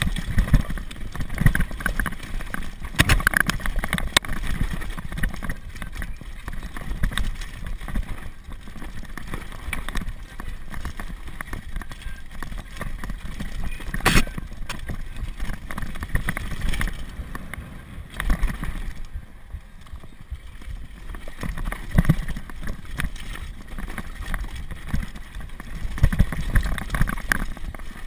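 Downhill mountain bike rattling over a rocky trail: tyres crunching on loose stones, with constant small knocks and clatter from the bike over a low rumble. There is one sharp knock about halfway, and the noise eases for a couple of seconds about two-thirds of the way through.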